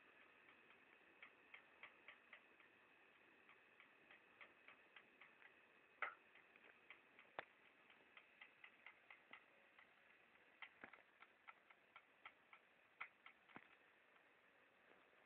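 Faint, irregular small clicks, about two a second, with a few louder ones among them.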